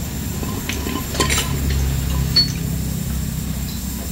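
A few light metallic clinks and taps of tools and engine parts handled around a bare motorcycle crankcase, with a short ringing ping about two and a half seconds in, over a steady low rumble.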